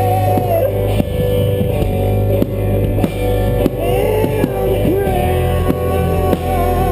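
A rock band playing live: a held lead line that bends in pitch over bass, guitar and a steady drum beat.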